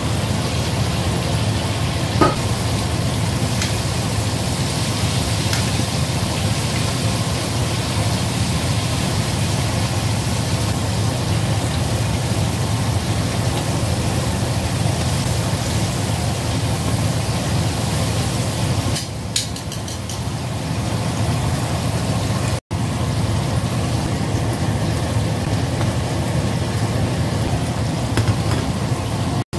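Flour-coated chicken pieces deep-frying in hot oil in a stainless steel wok: a steady sizzle and bubbling over a steady low hum, with a short click about two seconds in.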